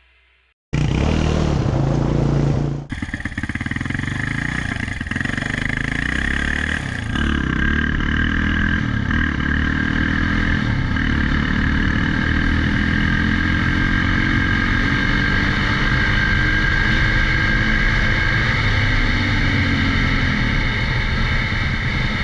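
Yamaha Raptor 660 quad's single-cylinder four-stroke engine running, starting abruptly just under a second in, its revs rising and falling.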